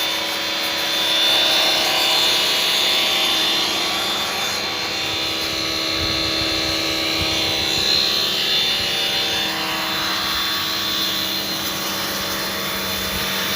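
Electric pressure-washer pump motor running steadily with a hum, and water hissing from its hand spray gun as it cleans an air-conditioner condenser.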